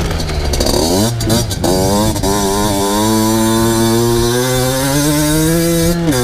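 Two-stroke motocross bike's engine revving up, with a break and another climb in pitch like a gear change, then pulling at a fairly steady, slowly rising pitch; the pitch dips briefly near the end.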